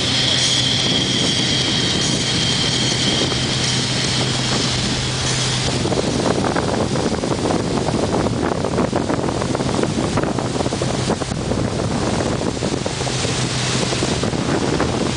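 Tow boat's engine running at a steady pitch, with wind buffeting the microphone and water rushing in the boat's wake.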